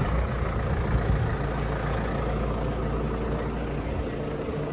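Tractor engine running steadily while its hydraulics raise the body of a tipping trailer.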